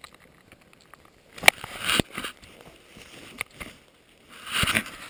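Handling noise of a GoPro being fitted onto a head-strap mount: rustling of clothing and straps, with two sharp clicks about a second and a half and two seconds in, and more rustling near the end.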